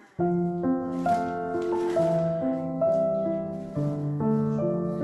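Background keyboard music of held piano-like notes changing in steps, cutting in suddenly just after the start.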